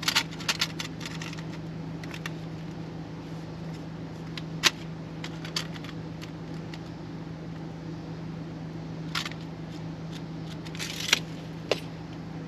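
Scattered light clicks and taps from hand work against a camper's steel frame as a stabilizer jack is held in place and its holes marked, over a steady low hum.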